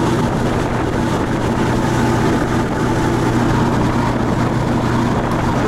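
Motorboat under way: its engine drones steadily with a constant low hum, mixed with the rush of the churning wake.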